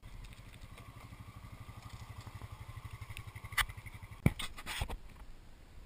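ATV (quad bike) engine running at low speed with a steady low pulsing, with a few sharp knocks and rattles about three and a half to five seconds in, the loudest just past four seconds.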